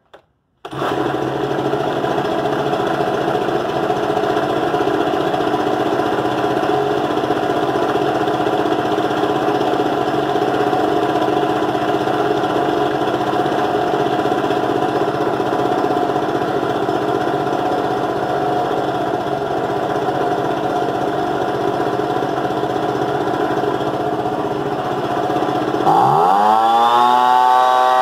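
Ryobi BP42 backpack leaf blower's 42cc two-stroke engine starting up just under a second in and running steadily with the blower fan's rush of air. Near the end it is revved hard, the pitch rising sharply.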